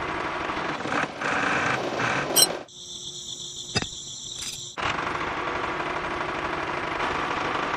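Small electric gear motor of a homemade toy tractor running with a fast buzzing rattle. It breaks off for about two seconds in the middle, where there is a single click, then starts up again.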